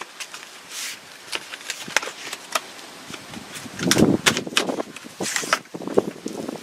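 Plastic packaging of rubber door edge bumper guards being opened and handled: crinkling and many scattered sharp clicks, with heavier rustling and handling from about four to six seconds in.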